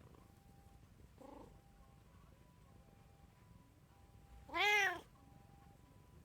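Domestic cat meowing: a short, faint meow about a second in, then one loud meow near the end whose pitch rises and falls.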